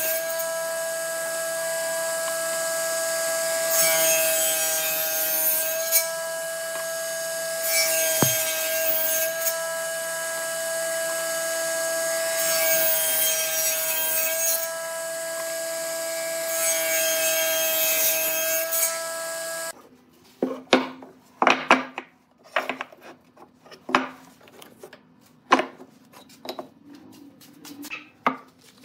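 Table saw running with a steady whine while its blade rips through a glued-up block of mixed light and dark wood four times, each pass a spell of louder cutting noise. About two-thirds of the way in, the saw sound cuts off and gives way to a run of sharp wooden knocks and clicks as wood blocks are handled and set down.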